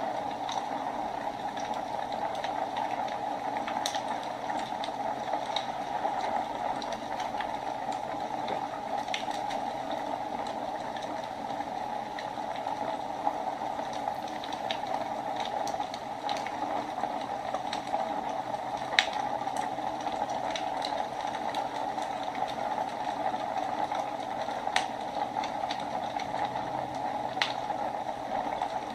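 Wood fire burning in a fireplace: a steady hiss with scattered crackles and sharp pops, a couple of them clearly louder than the rest.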